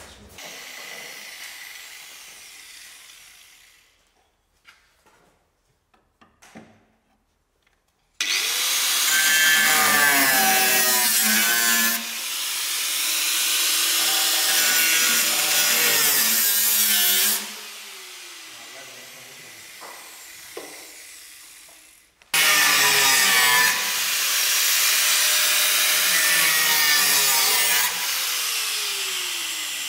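Angle grinder cutting car-body sheet metal in two runs: after a few quiet seconds with scattered clicks, it bites in for about nine seconds, its pitch wavering under load, then winds down with a falling whine. About four seconds later it starts cutting again and winds down once more near the end.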